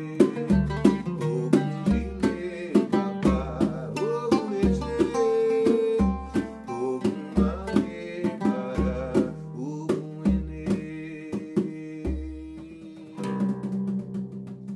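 Oud and atabaque hand drum playing an ijexá groove: quick plucked oud notes over regular deep drum strokes. About 13 seconds in the drum drops out and the oud carries on alone with ringing notes.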